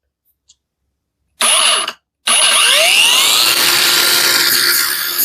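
Parkside Performance 20 V brushless cordless angle grinder started briefly and cut off, then started again, its disc spinning up with a rising whine to a steady, loud free run.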